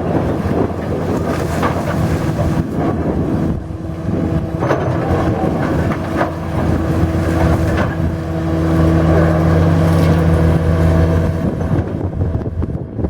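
Engine of a heavy demolition machine running steadily, getting louder for a few seconds in the second half, with a few scattered knocks and wind buffeting the microphone.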